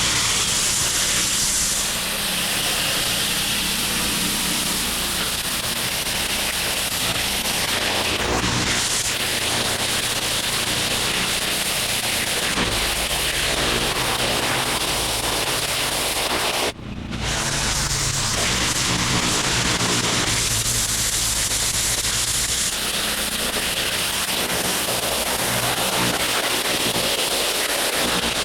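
Pressure washer gun spraying a high-pressure water jet onto paver stones: a steady loud hiss over the low hum of the machine running. The trigger is released for a moment about two-thirds of the way through, then the spray starts again.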